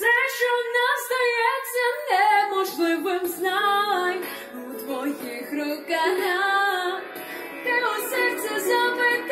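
A woman singing a pop ballad into a handheld microphone over instrumental backing music; her voice comes in right at the start after an instrumental passage, in phrases with short breaths between them.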